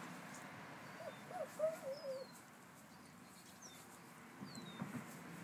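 Birds chirping in the background: thin, high, falling chirps scattered through, with a short low wavering call, like a coo, between about one and two seconds in.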